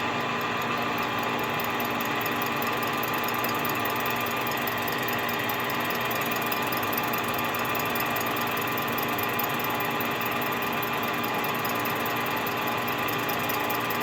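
Metal lathe running steadily with a constant hum of several tones, taking a slow, light cut of about 15 thou off the base of a Stihl MS 261 chainsaw cylinder held on a mandrel.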